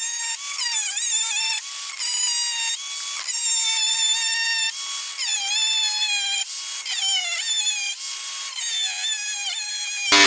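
Cordless angle grinder cutting through a steel truck bumper, its high motor whine dipping in pitch again and again as the disc bites into the metal and recovering between cuts. About ten seconds in, the whine cuts off suddenly because the cheap battery has died.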